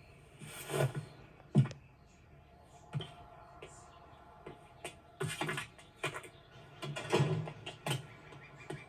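Scattered clicks, knocks and rustles at irregular intervals, the sharpest a single loud click early on and a busier cluster near the end.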